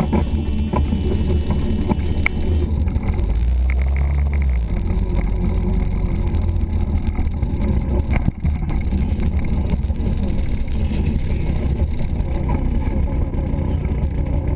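A Babetta two-stroke moped's engine running while it is ridden, with heavy wind rumble on the handlebar-mounted microphone.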